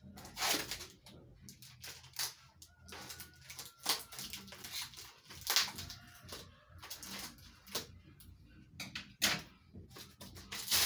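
Scissors snipping through plastic and cardboard packaging, with irregular crinkling and rustling as the wrapping is cut and pulled open.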